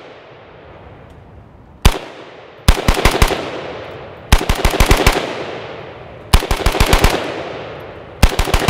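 IWI Galil ACE rifle in 7.62x39 firing: a single shot about two seconds in, then quick strings of six to eight shots each, starting near three, four and a half, six and a half and eight seconds. Each string trails off in a fading echo.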